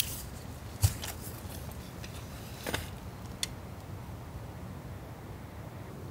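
Hands handling an ultralight tarp and the gear hung inside it: a few light clicks and a brief rustle in the first three and a half seconds. A steady low rumble runs underneath.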